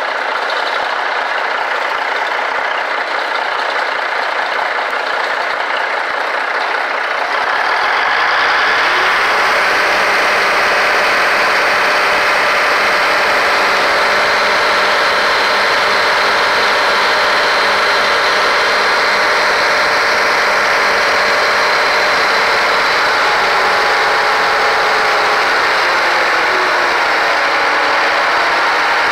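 Cummins six-cylinder diesel engine of a Versatile 875 tractor, fed by its PT fuel pump, running steadily; it gets louder about seven seconds in.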